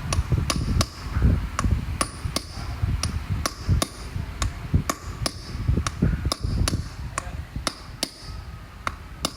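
Light metallic taps repeating evenly, about two to three a second, each ringing briefly, like a hammer or tool striking metal.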